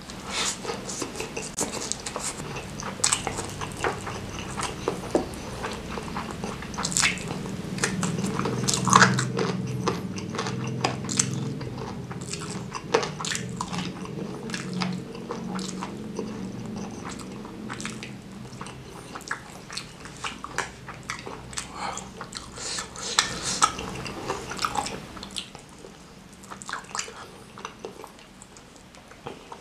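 A person chewing a mouthful of rice, instant fried noodles and chilli-topped fried chicken, eaten by hand: a stream of wet smacks and clicks of the mouth, loudest about nine seconds in.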